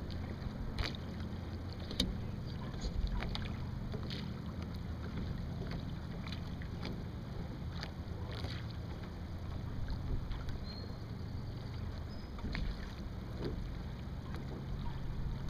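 Steady low wind rumble on the microphone aboard a Sunfish sailboat under way, with water slapping against the hull in short, irregular splashes.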